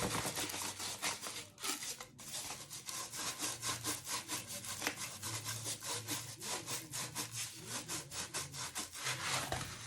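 Repeated rubbing or scraping strokes at a steady rhythm of about four a second, like something being rubbed back and forth by hand.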